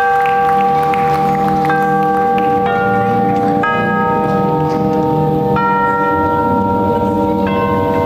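Recorded music: a slow melody struck on bells, one note about every second, each note ringing on and overlapping the next.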